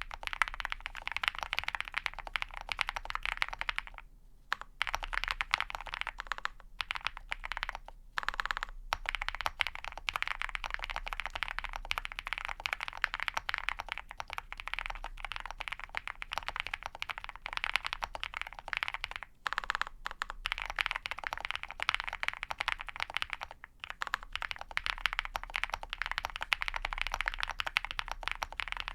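Steady typing on a custom mechanical keyboard with lubed and filmed Ca Phe Sua Da linear switches, a POM plate and PBT keycaps: a dense run of key clacks broken by a few brief pauses.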